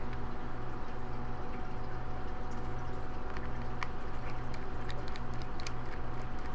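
A steady electrical hum and hiss, with a scattering of faint small clicks from a small screwdriver working screws out of the Syma X5 quadcopter's plastic body.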